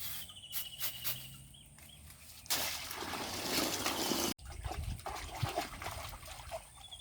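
Water splashing and sloshing, with a loud rush of pouring water in the middle that cuts off suddenly. An insect trills at the start and again near the end.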